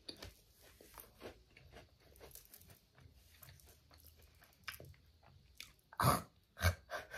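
Close-up mouth sounds of a person chewing a crisp seaweed roll snack: small, irregular crunches and crackles. A couple of louder mouth sounds come near the end.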